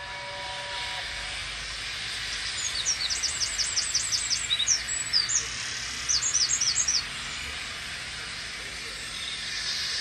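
A steam locomotive's chime whistle, BR Standard Class 4MT 75014, dies away about a second in. A steady hiss follows, with a small bird's rapid high chirps in two quick runs in the middle.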